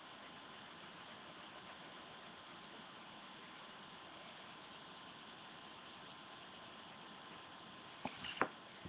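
Faint, steady hiss with a fast, even, high-pitched pulsing, and a few sharp knocks close together about eight seconds in.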